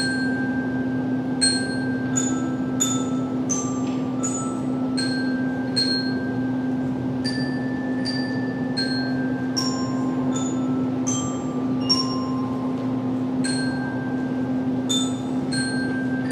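Slow melody played on tuned metal percussion: single high struck notes, about one or two a second, each ringing on briefly, over a steady low hum.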